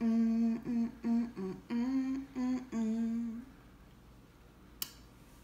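A woman humming a short tune with her mouth closed, a string of held notes that stops about three and a half seconds in. A single faint click near the end.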